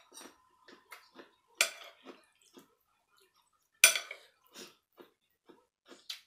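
A metal spoon clinking and scraping against ceramic bowls as soup is spooned from a large bowl into a small one, with two loud clinks about one and a half and four seconds in and lighter taps between.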